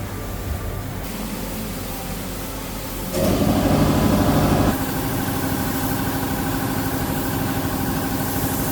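A motor running steadily, with a louder stretch of about a second and a half starting about three seconds in.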